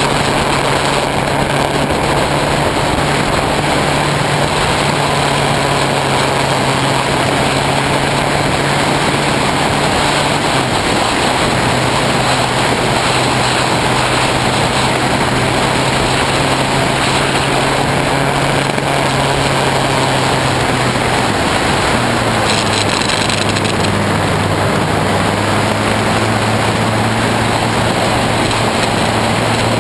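Honda CBF600S inline-four motorcycle engine running at cruising speed, heard through the GoPro's sealed waterproof housing, which turns wind and road into a dense, strange rushing noise over the engine note. The engine note drops in pitch about ten seconds in and again at about twenty-one seconds.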